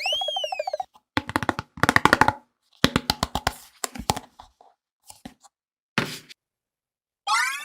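Hands squeezing a frozen mesh stress ball in short bursts of rapid crackling and squelching clicks. A whistle-like tone rises and falls at the start, and another rises near the end.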